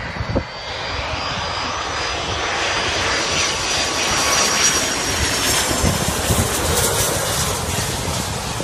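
Twin-engine jet airliner on low final approach: engine noise with a high whine that grows louder as it passes low overhead, peaking mid-way and easing slightly near the end.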